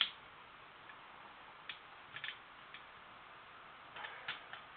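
Scattered faint clicks and taps of small metal typewriter parts being handled as a Corona 3's platen is worked into its carriage, with a sharper click at the start and a small cluster near the end.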